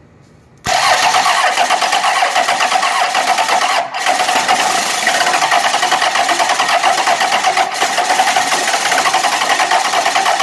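A 12-valve Cummins 5.9 L inline-six diesel cranking over hard on the starter with a squirt of ether in it, a loud fast even chugging that starts about a second in and dips briefly twice. The engine has compression and turns over well but does not settle into running on its own.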